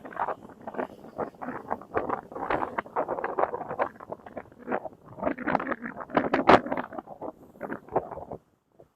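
Footsteps crunching on a trail, a quick irregular run of gritty steps that stops briefly near the end.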